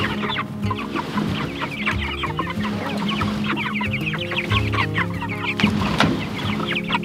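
A flock of Black Jersey Giant chickens clucking, with many short calls overlapping throughout.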